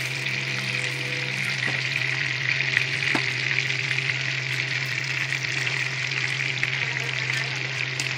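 Marinated chicken pieces frying: a steady sizzle with a few faint crackles, over a steady low hum.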